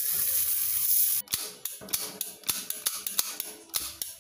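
Sausages sizzling on a hot steel griddle plate for about a second, cut off abruptly. Then a run of roughly a dozen sharp, irregular clicks over about three seconds, from a hand-held stove lighter being clicked at the alcohol burner's fuel cup.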